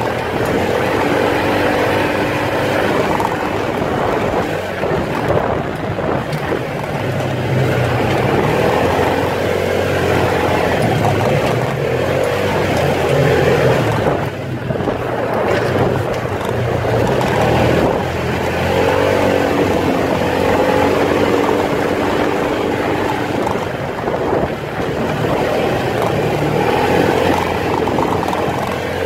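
Off-road vehicle's engine running as it drives a dirt trail, its pitch rising and falling in slow waves with the throttle, over a constant noise of the ride on rough ground.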